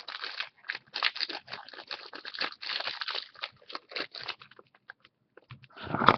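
Plastic packaging crinkling and rustling in irregular bursts as it is torn and pulled open by hand, with a louder burst of handling near the end.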